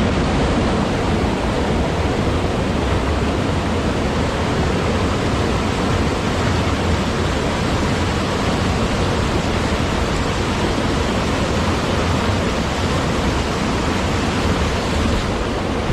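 Steady, loud rushing noise with a strong low rumble, unchanging throughout.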